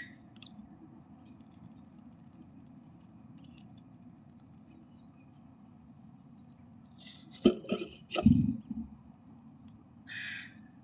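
Faint high chirps of great tit nestlings inside a wooden nest box, then a cluster of scratches and knocks with a low thump about seven to eight and a half seconds in as the adult great tit scrabbles against the box and leaves. A short hissing burst follows near the end.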